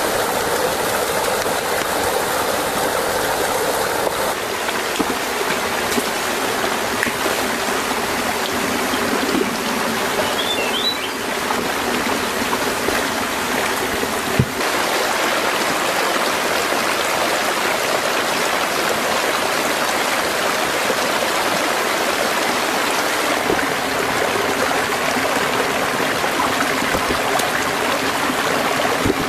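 Shallow rocky stream and small cascade, water rushing steadily over the stones, with one brief knock about halfway through.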